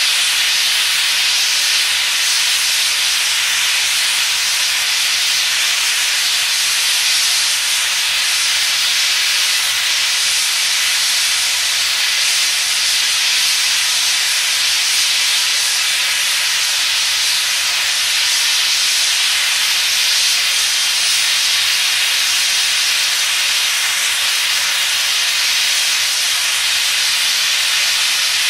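JNR Class C56 steam locomotive letting off steam: a loud, steady hiss that does not change.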